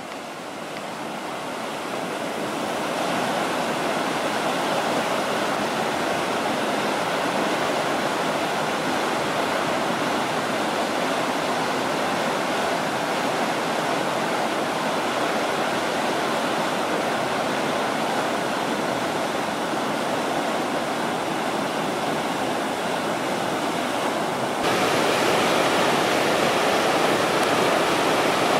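Whitewater river rapids rushing steadily, growing louder over the first few seconds and stepping up suddenly louder about three-quarters of the way through.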